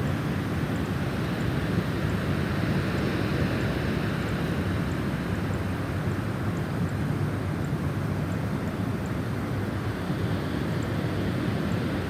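Snowstorm wind blowing steadily: a deep, low rush with a higher hiss that swells a few seconds in and again near the end, as the gusts come and go.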